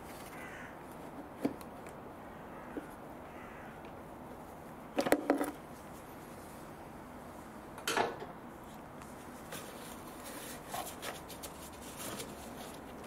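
A metal air-conditioning pipe is worked by hand into its fitting on the car's condenser, giving a few light metallic clicks and knocks. The loudest cluster comes about five seconds in and another about eight seconds in.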